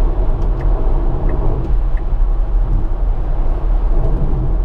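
Tyre and wind noise inside a Tesla Model S cabin at motorway speed: a steady low rumble with an even hiss above it and no engine sound.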